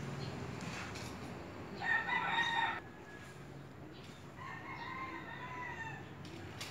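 A rooster crowing twice: a loud crow about two seconds in, then a fainter crow about five seconds in.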